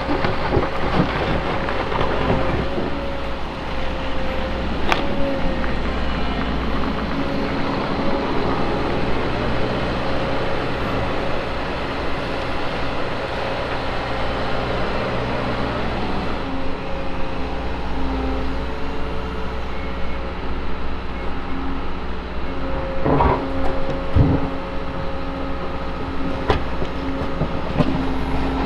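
Liebherr 914 wheeled excavator's diesel engine and hydraulics running steadily under load as it digs and swings, with a constant whine over the engine rumble. A few sharp knocks from the bucket working the soil, a cluster of them about three-quarters of the way through.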